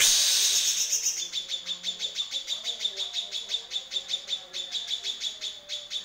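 Caged cucak kinoy singing its harsh training song: a fast, even string of sharp chirps, about seven a second, densest and loudest in the first second.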